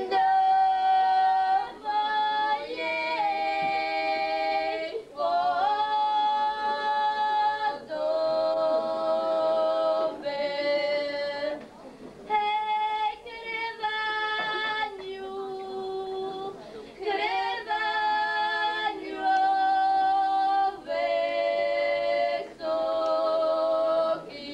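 Two girls singing a Polish highland (góral) folk song unaccompanied, in two voices, in long held notes broken by short breaths.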